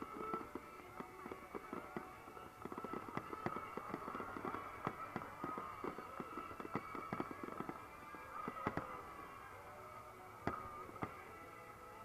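Aerial firework shells bursting in rapid succession: a dense volley of bangs and crackles that thins out in the last few seconds, with one sharp bang near the end.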